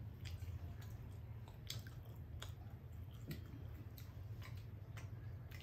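Faint chewing and wet mouth clicks of people eating pizza slices, scattered irregularly over a low steady hum.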